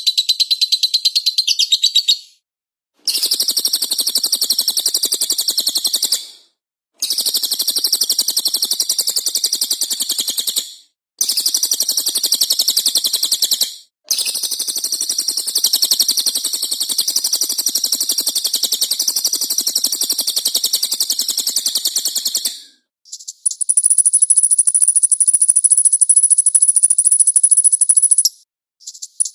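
Recorded songbirds chattering in fast, high, continuous trills, cut into segments separated by abrupt short silences. From about two-thirds of the way in, this gives way to a thin, very high, buzzing trill.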